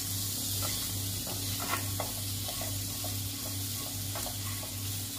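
Diced boiled potatoes sizzling in hot oil in a nonstick pan as a silicone spatula stirs and tosses them, with scattered soft scrapes and taps from the spatula against the pan.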